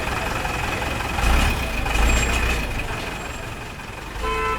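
Street traffic: a steady wash of vehicle engines, with a heavy vehicle rumbling past loudest between about one and two and a half seconds in, and a short horn toot near the end.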